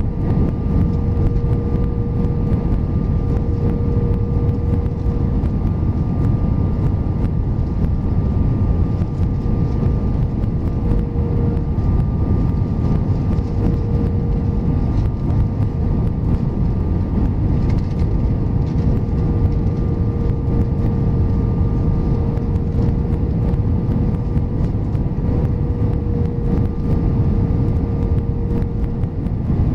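Steady cabin roar of an Airbus A320 descending on approach with flaps extended, heard from a window seat over the wing. A faint steady whine runs through it.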